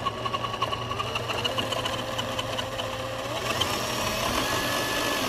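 Remo Hobby 1093-ST RC crawler's electric motor and geared drivetrain running with the wheels spinning free in the air. It makes a steady whine that rises in pitch a little after three seconds in. The noise is "not horrible" for a budget truck.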